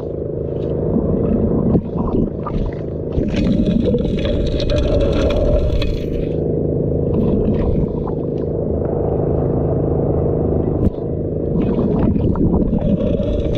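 Proline 6-inch gold dredge engine running steadily, with irregular scraping and rushing water noise over it.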